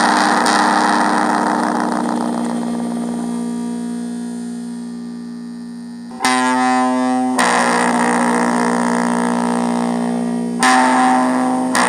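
Music: sustained, effects-laden electric guitar chords. A long chord fades slowly over the first half, then new chords ring out about halfway through and again near the end.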